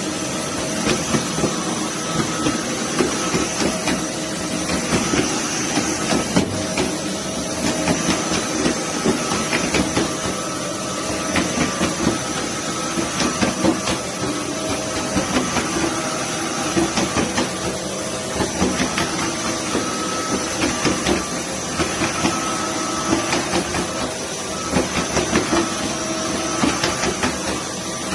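Roborock F25 LT wet-and-dry floor vacuum running, its motor giving a steady whine with several constant tones over a hiss. The level swells and dips irregularly, every second or so, as the head works across the floor.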